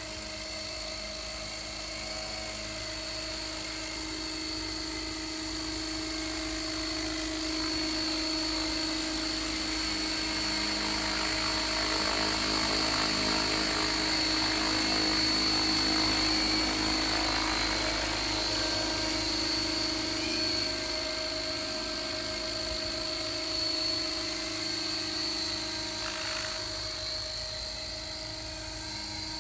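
Radio-controlled scale Gazelle helicopter built on Align T-Rex 600 mechanics, with a fenestron tail rotor, flying low: a steady whine from its rotors and drive. It grows louder as the model passes close by the middle, then fades as it moves away.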